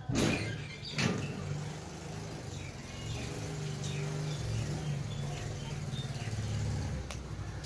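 A low engine hum running steadily, with two sharp knocks in the first second.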